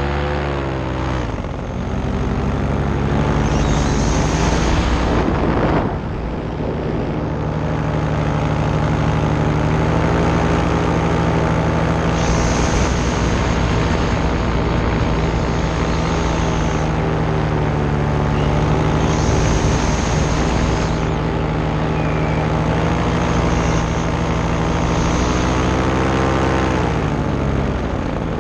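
Paramotor engine and propeller running in flight. The pitch drops as the throttle eases at the start, climbs back a couple of seconds in, holds steady through most of the stretch, and falls again near the end.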